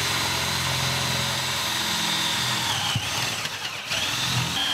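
Power drill boring a 3/8-inch hole down through a plywood floor, its motor running with a steady high whine. About three seconds in it slows and dips, then speeds back up.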